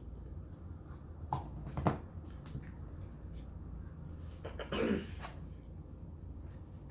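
Close-up eating sounds: chewing with short wet mouth clicks and smacks, one cluster about a second and a half in and a louder one about five seconds in, over a low steady hum.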